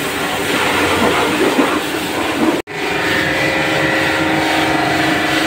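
Commercial high-pressure washer spraying a car: the hiss of the jet on the bodywork and wet ground over the steady hum of the Annovi Reverberi pump and its electric motor, running at good pressure. The sound breaks off for an instant about two and a half seconds in, then carries on with a steadier hum.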